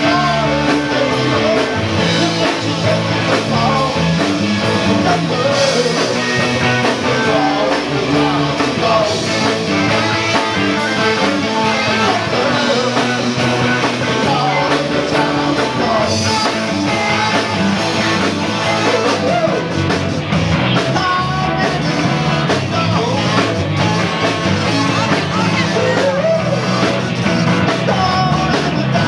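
Live rock band playing loud, with electric guitars, bass guitar and drums, and a voice over them at the microphone.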